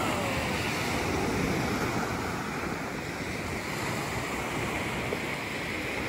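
Ocean surf breaking and washing steadily onto a sand beach, with wind rumbling on the microphone.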